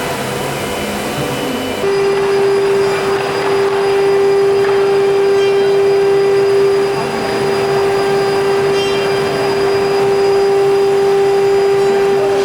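CNC router spindle running, with a steady high whine over a rushing, vacuum-like noise. About two seconds in the sound steps up louder and a single lower, steadier whine takes over.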